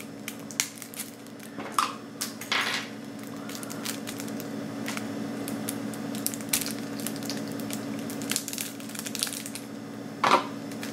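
Foil wrapper around a stack of trading cards crinkling and crackling as it is handled, slit open with a pen tip and peeled off, with a few louder snaps. A steady low hum runs underneath.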